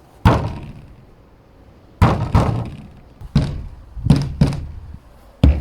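Someone striking an object to make improvised percussion: seven loud knocks at an irregular beat, each dying away quickly.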